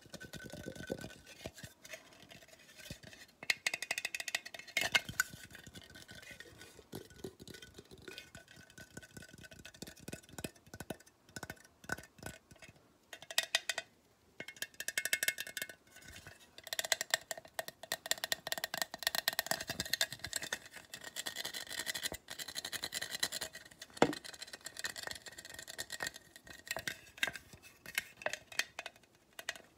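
Fingernails and fingertips tapping and scratching on a hard blue glass object: quick, irregular clicks in bursts, some with a brief light ring.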